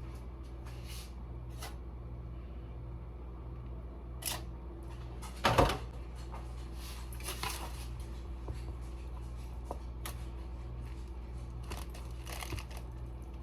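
Kitchen prep handling sounds: scattered light clicks and taps, with one louder knock about five and a half seconds in, over a steady low hum.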